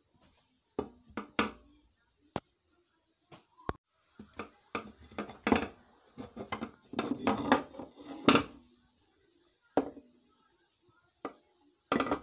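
Handling noise from a steel axe head and its leather sheath being picked up, turned over and set down on a flat surface: scattered knocks and clicks, busiest in the middle, with a quick run of knocks near the end.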